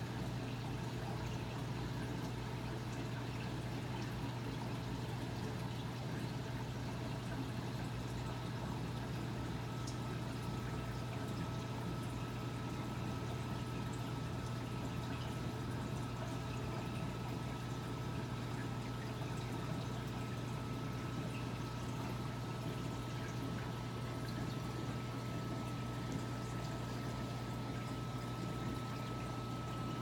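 Reef aquariums' water circulation: a steady trickle and splash of running water over a low, even pump hum. A faint high steady tone comes in about a third of the way through.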